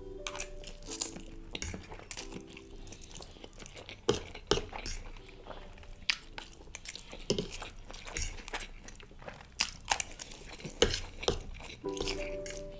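Close-miked mukbang eating sounds: someone chewing spicy noodles, with many irregular short wet clicks and smacks. Faint background music with held chords plays underneath.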